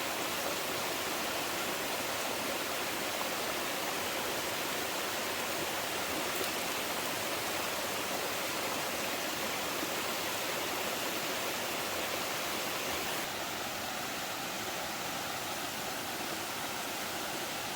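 Steady, even hiss of water: rain or running stream water, with no distinct drops or splashes, a little quieter after about thirteen seconds.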